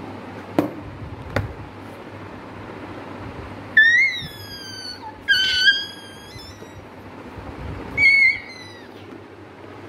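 Two light knocks as a cardboard box is shut, then a small boy gives three loud, high-pitched squeals a second or two apart, each sliding in pitch.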